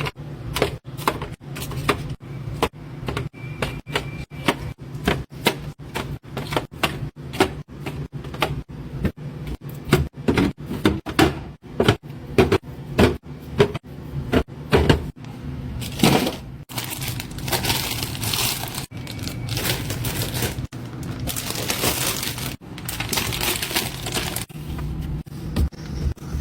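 Containers and food packaging being handled during a fridge restock: a long run of sharp clacks and knocks, about two a second, then from about two-thirds of the way in several longer stretches of rustling, crinkling noise.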